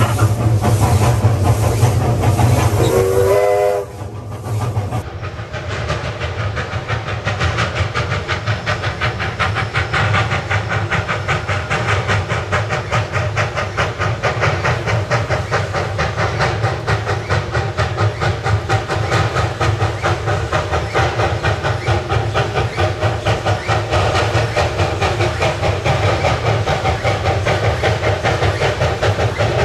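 Narrow-gauge Hudswell Clarke steam locomotive working hard, with a short rising whistle about three seconds in, then a steady, fast run of exhaust beats with hiss as it climbs.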